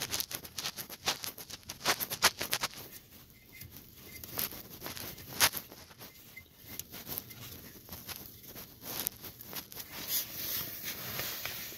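Gloved hand threading a new NOx sensor into its port on a Cummins 6.7 turbo outlet exhaust pipe: irregular light clicks, taps and rustles. The clicks are thickest in the first couple of seconds, with one sharper click about halfway through.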